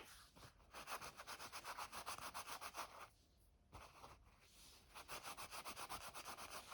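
Paper towel rubbed quickly back and forth over the small distance spacers of a skateboard truck, wiping off dust. Faint, rapid strokes, several a second, in two spells with a pause of about a second and a half between them.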